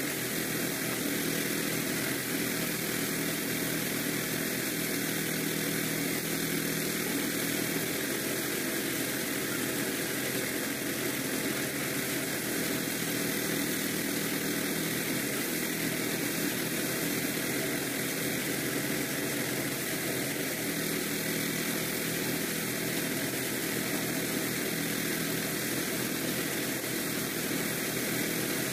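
Small single-cylinder engine running steadily, driving a portable rice thresher as bundles of rice stalks are fed into its spinning drum.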